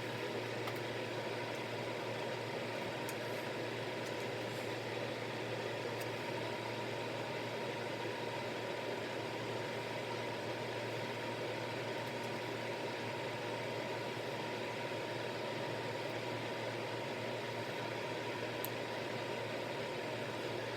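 Hair dryer running steadily, a constant rushing noise with a low hum, used to dry liquid latex.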